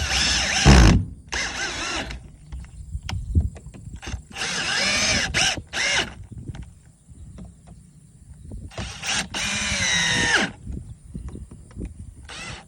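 Cordless drill/driver with a square-tip (Robertson) bit driving screws into a new door hinge, running in about five short bursts with pauses between as each screw goes in.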